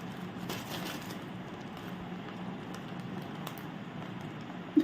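Faint crinkling and rustling of a plastic Kurkure snack packet being bitten and worked open with the teeth, a few soft crackles over a steady low hum.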